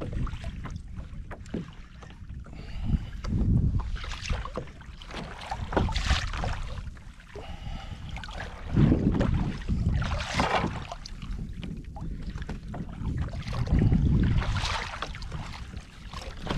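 Wind buffeting the microphone over water washing and splashing against a kayak's hull in a choppy sea. The wash comes in several louder surges.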